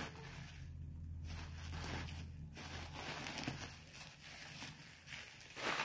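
Plastic bubble wrap being crinkled and pulled off an electric mosquito racket by hand, an uneven run of rustling and crackling with a louder crinkle near the end.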